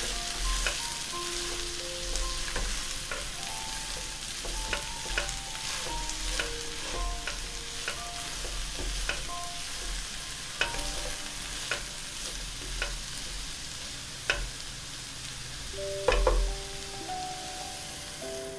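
Potatoes, sausage and onion sizzling in a hot nonstick frying pan while a plastic slotted spatula stirs them, with frequent scrapes and taps of the spatula against the pan. A light melody of background music plays underneath.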